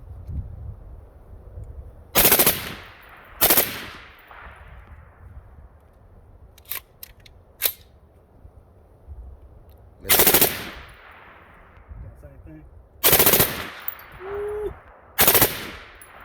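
Suppressed full-auto gunfire in five short bursts of about half a second each, separated by pauses of one to six seconds. Two sharp single clicks come in the long gap between the second and third bursts.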